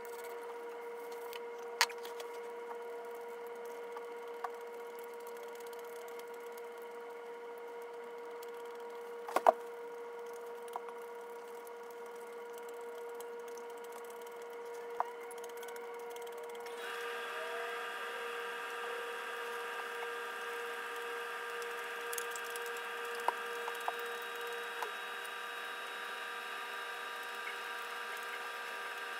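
A few sharp clicks of wooden chopsticks against a glass plate, the loudest about nine and a half seconds in, over a steady background hum that picks up higher tones about seventeen seconds in.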